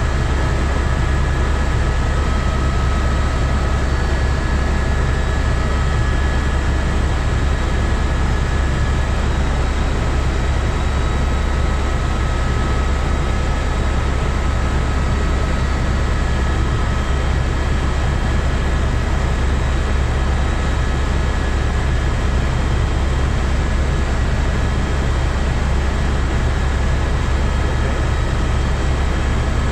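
Helicopter in steady cruise flight heard from inside the cabin: a loud, even rotor and engine drone, deep and unbroken, with a faint steady whine above it.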